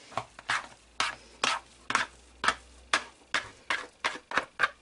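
A hand patting the bottom of an upturned plastic mixing bowl to release bread dough onto the work surface: a steady series of short knocks, about two to three a second.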